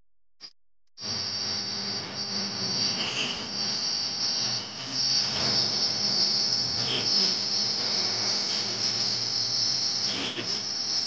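A steady high-pitched hiss over a low hum, starting abruptly about a second in after near silence.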